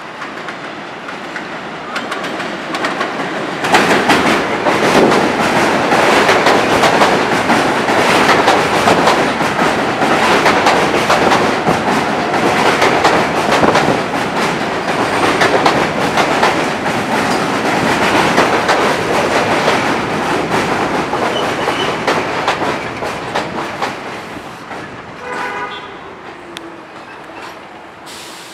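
New York City subway train running on the Culver Line, its wheels clattering over the rail joints. It grows loud about four seconds in, stays loud for some twenty seconds, then fades, with a brief pitched tone near the end.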